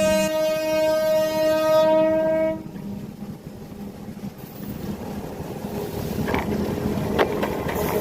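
A train horn sounds one held note that cuts off sharply about two and a half seconds in, followed by the rumble of the approaching train growing louder, with sharp knocks from the wheels striking bad rail joints.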